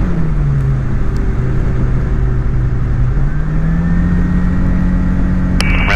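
Light aircraft's piston engine running steadily during a touch-and-go, its note dipping slightly at first and then rising from about halfway through as power comes up. A radio voice cuts in near the end.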